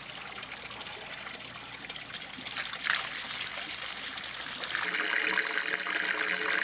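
Tank-flush liquid pouring from a plastic jug through a funnel into a boat's freshwater tank deck fill. About five seconds in, water from a garden hose starts running steadily into the 85-gallon tank through the deck fill.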